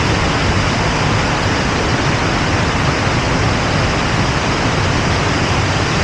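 Loud, steady rush of water from a waterfall and the shallow rapids below it, close to the microphone.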